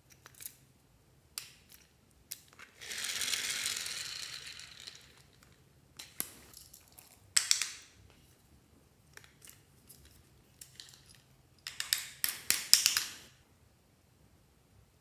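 Hard plastic toys being handled and opened, with sharp clicks and rattles, and a two-second rustle about three seconds in; a dense run of clicks and rattles comes near the end.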